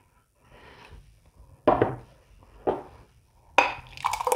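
Thick blended tomato juice poured from a blender jug into a drinking glass, with three short clinks of glass about a second apart.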